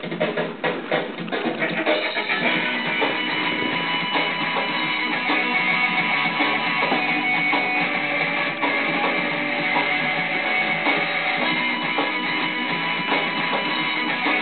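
Background music: a song with sharp, rhythmic strokes for about the first two seconds, then a fuller, steady section.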